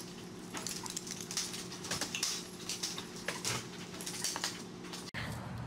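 A small dog's claws scrabbling and clicking on a tile floor in quick, irregular ticks over a steady low hum, breaking off near the end.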